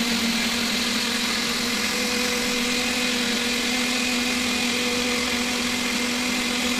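Electric countertop blender running steadily at one constant pitch, puréeing grapes with water.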